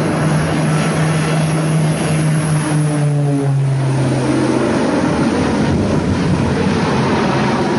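Twin-engine propeller plane flying low past, its engines droning with a steady hum over a rushing noise. The hum drops in pitch about three and a half seconds in and then gives way to the rushing noise.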